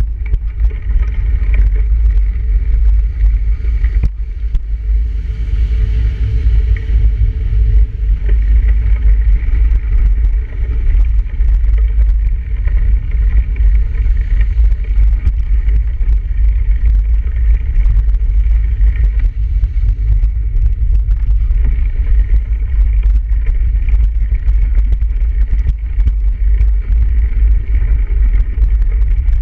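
Riding noise from a bicycle over snow, picked up by a handlebar-mounted camera: a loud, steady low rumble of wind buffeting the microphone and road noise, with frequent small clicks throughout.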